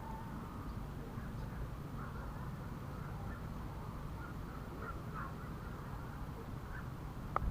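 Faint scattered bird calls over a steady low rumble, with one sharp click near the end.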